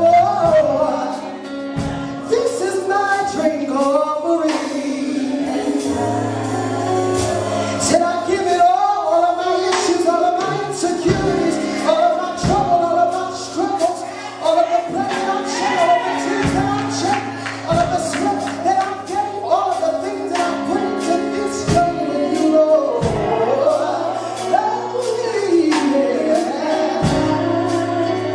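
Gospel song with singing voices over a steady drum beat and held low bass notes.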